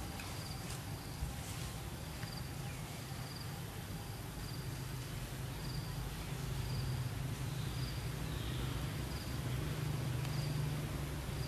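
An insect chirping, a short high chirp repeated at an even pace, roughly three every two seconds, over a steady low rumble.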